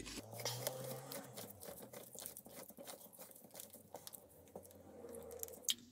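Faint, irregular light ticking and rubbing as a Mk1 Audi TT's gear knob is twisted by hand onto the gear lever to tighten it.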